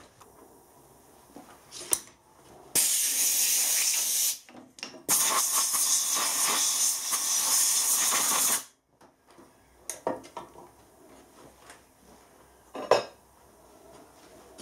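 Compressed-air blow gun hissing in two long blasts, blowing swarf off the lathe spindle nose and chuck tapers. A couple of short metal clinks follow near the end.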